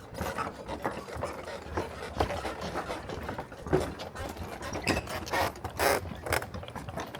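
Footsteps of a hiker walking along a trail: irregular scuffs and knocks, about one step every half second.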